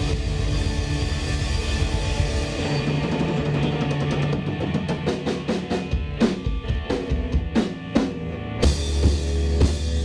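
Live rock band with electric guitar, bass guitar and drum kit playing an instrumental section. About halfway through, the band thins out to a run of separate accented drum and cymbal hits. Near the end the full band crashes back in.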